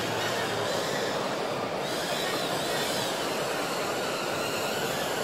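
Steady background noise of a large crowd talking in a big echoing hall, the voices blurred into one constant wash with no single voice standing out.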